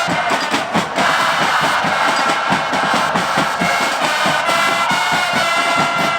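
Football supporters' section singing a chant together over a fast, steady pounding of drums.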